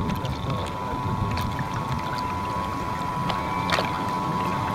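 Onboard sound of a radio-controlled model tugboat under way: a steady whine from its drive motor over the low churn of water against the hull, with a few faint ticks of splashing.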